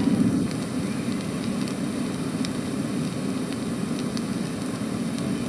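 Steady hiss with scattered faint clicks and crackles: surface noise of an old record in the silent gap between tracks.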